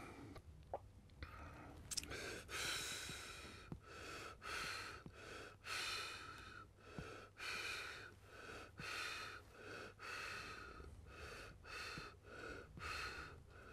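A person's faint breathing: a quick run of short breath sounds, about two a second, from about two seconds in until near the end.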